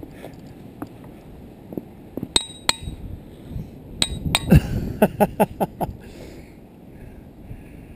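Hammer striking diabase boulders in a ringing-rock field: sharp metallic clinks, a pair about two and a half seconds in and another pair about four seconds in. Then comes a quick run of five or so strikes whose rock rings with a short bell-like tone.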